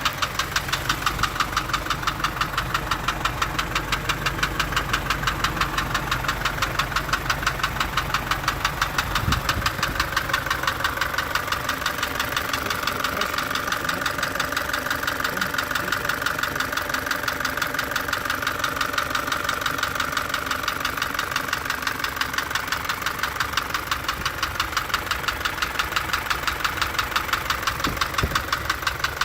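Isuzu four-cylinder truck engine running with a steady, evenly spaced knocking. The mechanic says it could come from the tappets, rocker arms or camshaft, or from a failed connecting-rod bearing.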